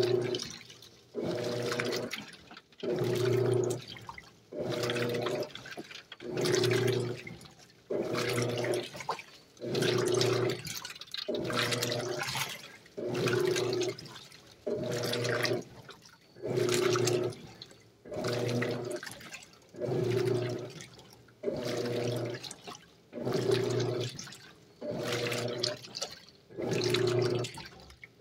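Electrolux LAC 12 top-loading washing machine agitating clothes in a full tub of water. The motor hums through each stroke and the water and clothes slosh, in an even rhythm of about one stroke a second with short pauses between.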